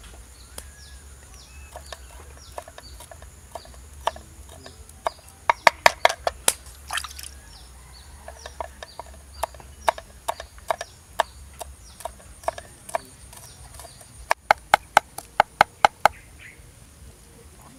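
A knife chopping on a thick round wooden chopping board, cutting chilies and spring onions: single sharp strokes a little apart, with two fast runs of rapid strikes, one about six seconds in and one near the end.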